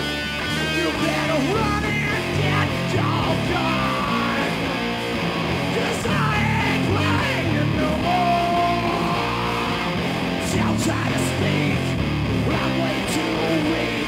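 Live rock band playing loud, with electric guitar over drums and steadily changing bass notes, and cymbal crashes in the second half.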